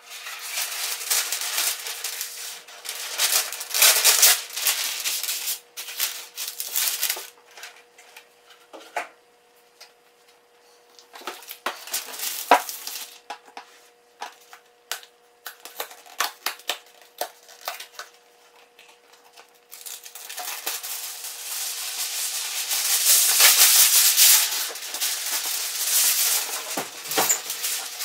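Aluminium foil and its cardboard box being handled: rustling and crinkling, then scattered taps and clicks, then loud crackling crinkles near the end as a large sheet of foil is pulled out and crumpled.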